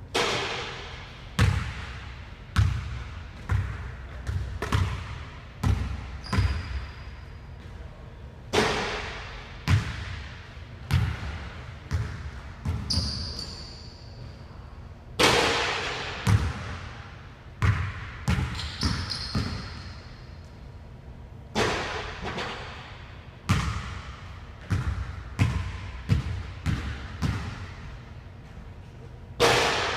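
Basketball bouncing and thudding on a hardwood gym court, about twenty-five sharp hits spread irregularly, each echoing in the large empty hall. A few brief high squeaks of sneakers on the floor come between them.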